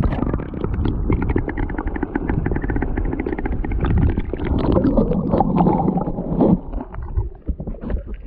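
Muffled rumbling and gurgling of water picked up by a submerged camera, with many small clicks and knocks against its housing.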